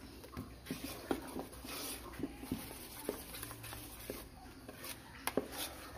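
Metal spoon stirring thick rice-flour batter in a stainless steel bowl, with light, irregular clicks of the spoon against the bowl.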